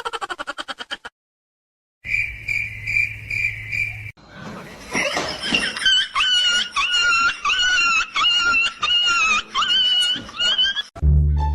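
An animal calling over and over in short high-pitched cries, about two a second, for several seconds. Before them come a brief run of rapid pulses, a short silence, and a steady high pulsing trill.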